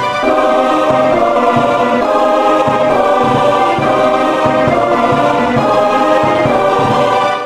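Background music with sustained, held chords at a steady, loud level.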